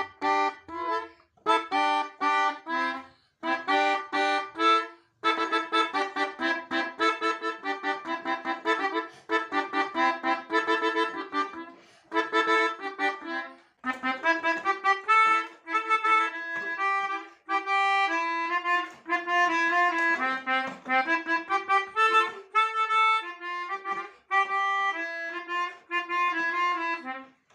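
Pianika (melodica) playing telolet bus-horn tunes: several notes often sound together, in short choppy phrases with brief gaps at first, then longer runs of quick notes.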